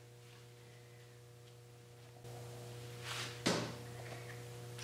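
A steady low hum in a quiet room, with a couple of brief soft rustling noises late on.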